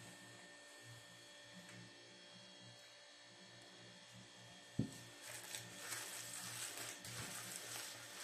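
A steady electrical hum, then a single sharp knock about five seconds in, after which a gloved hand squishes and kneads a wet minced-meat kebab mixture in a plastic bowl with a rough, irregular squelching.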